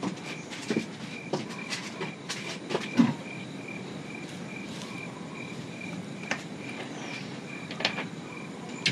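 A cricket chirping steadily, about three evenly spaced chirps a second, with scattered clicks and knocks over it, the loudest about three seconds in.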